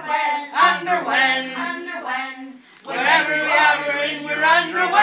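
A group of children and adults singing together in phrases, with a short break in the singing about two and a half seconds in before it picks up again.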